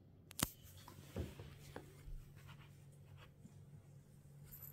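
Faint scratching and rubbing with a few light knocks, the loudest about half a second in: handling noise as the phone is moved up to the cats and a hand strokes the grey cat's fur. A low steady hum comes in about a second in.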